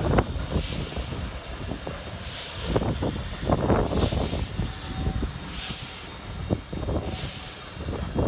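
Steam locomotive working slowly, with irregular exhaust chuffs and hissing from steam around its cylinders over a steady low rumble.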